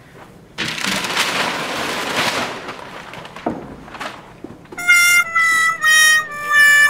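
A loud hissing rush for about two and a half seconds, then a "sad trombone" comedy sound effect: four brass notes stepping downward, the last one held long with a wobbling vibrato, the classic "wah-wah-wah-waaah" of failure.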